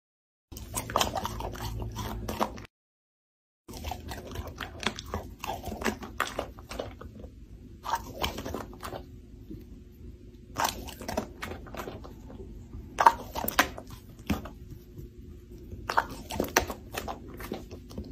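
Crisp crunching and crackling in irregular clusters, like food being chewed, over a low steady hum. The sound cuts out completely for about a second near three seconds in.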